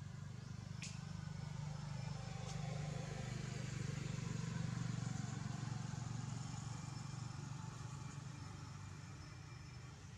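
Low engine hum of a motor vehicle, growing louder toward the middle and then fading away, with a single sharp click about a second in.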